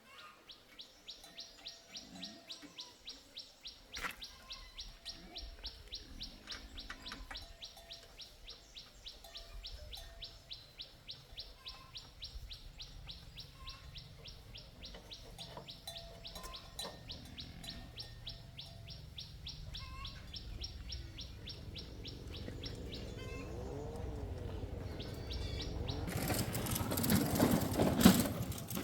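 A bird chirping in a fast, even series of short high notes, about four a second, that stops a few seconds before the end. A low rumble builds under it, and near the end a much louder noisy rush swells and then cuts off.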